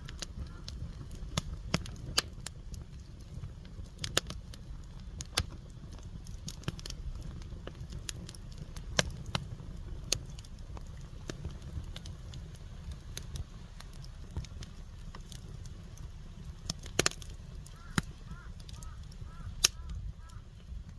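Firewood burning, crackling with irregular sharp pops over a low steady rumble. A few louder pops stand out, one about two-thirds of the way through and one near the end.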